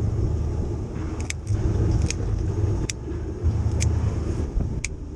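Low, steady rumble of a fishing boat's engine, with light, sharp clicks every second or so.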